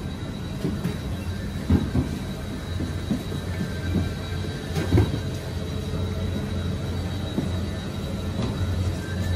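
Steady low mechanical rumble with a faint, steady high-pitched whine, and scattered soft knocks, the strongest about two and five seconds in.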